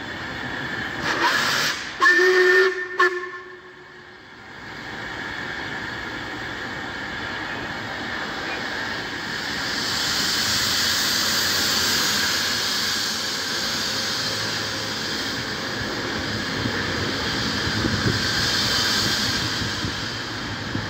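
A steam locomotive's whistle gives a short blast about two seconds in. After that comes a steady hiss of escaping steam, which swells and eases a couple of times.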